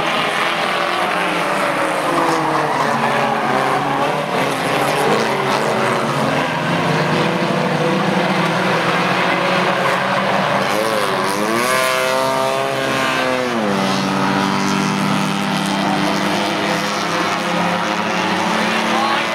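Four-cylinder stock cars racing on a short oval, their engines running hard together in a steady drone. About eleven seconds in, one engine's pitch climbs and falls, then drops sharply a couple of seconds later and holds a lower steady note.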